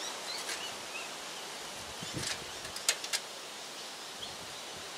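Outdoor ambience: steady wind noise on the microphone with small bird chirps, and a few light clicks about two to three seconds in as the sissy bar is fitted to the BMX frame.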